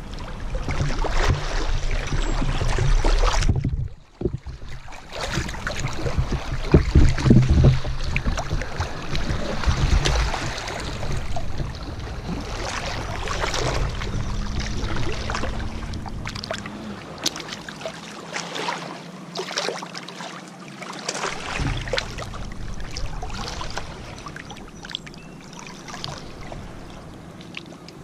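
Lake water sloshing and splashing right at a hand-held camera as a swimmer moves in the shallows, with many small splashes. Heavy low rumbling handling noise on the microphone for the first ten seconds or so, with a brief drop-out about four seconds in.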